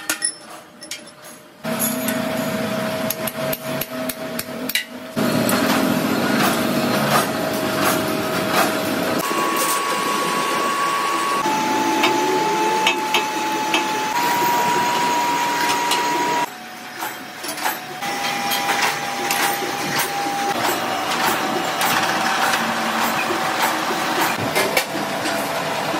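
Repeated hammer blows and metal clanks on the steel parts of an oil expeller machine being assembled, over the steady whine of running workshop machinery whose pitch shifts with each cut.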